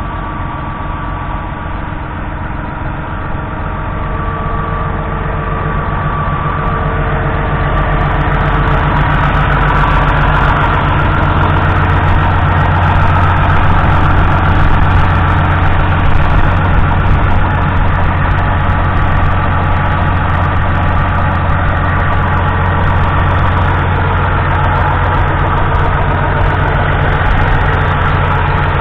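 The 6.0-litre six-cylinder diesel engine of a 1997 Massey Ferguson 6160 Dynashift tractor idling steadily. It grows louder over the first ten seconds or so, then holds even.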